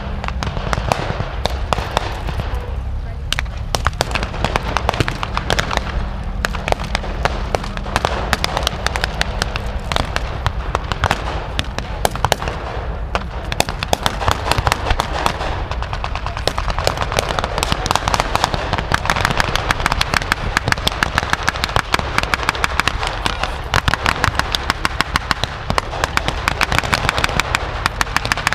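Blank small-arms fire in a mock battle: many shots crackling in quick succession, settling into an even run of about four shots a second near the end.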